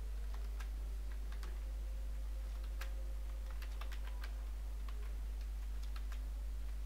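Typing on a computer keyboard: irregular key clicks as a short line of text is entered, over a steady low hum.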